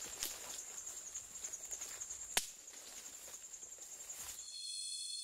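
Tropical rainforest insects trilling steadily, a thin high-pitched pulsing buzz, with a single faint click about two and a half seconds in. Near the end the insect sound changes to several steady high tones at once.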